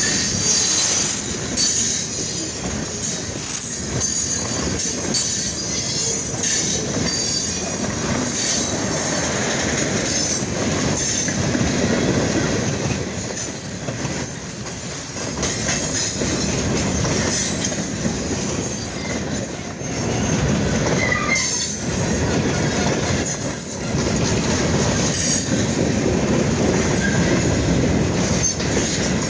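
A freight train's boxcars rolling steadily past, steel wheels rumbling and clacking on the rails, with a high-pitched wheel squeal most noticeable in the first half.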